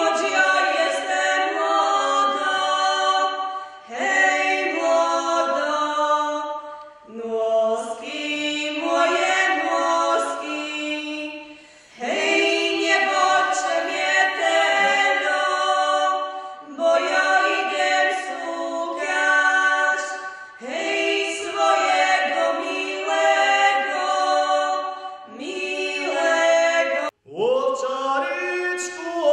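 Background music: a choir singing unaccompanied in several-part harmony, in sung phrases of a few seconds each with short breaths between. Near the end it cuts off suddenly and starts again.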